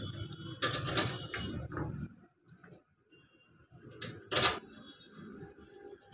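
Metal clicks and clinks of a hand tool working at a JCB diesel engine's fuel filter housing. There are two louder clanks, about a second in and again about four seconds in.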